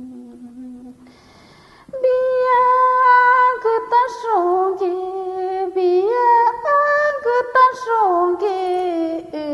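A woman humming a low held note softly, then a short breathy hiss, then singing an icaro (an ayahuasca ceremony healing song) unaccompanied in a full voice, with sliding, wavering notes.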